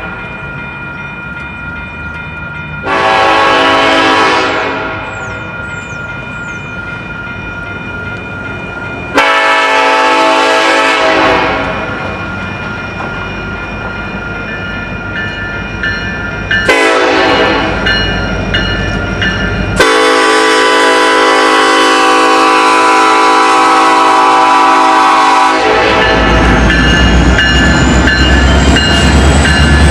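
Diesel locomotive's multi-chime air horn sounding a series of blasts: two of about two seconds, a short one, then one held about six seconds, the long-long-short-long pattern of a grade-crossing signal. Near the end the locomotive passes close with a loud low engine rumble and a thin rising whine.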